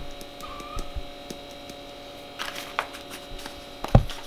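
Spice containers handled on a kitchen counter: a few light clicks of caps and lids, and a sharper knock about four seconds in, over a steady electrical hum.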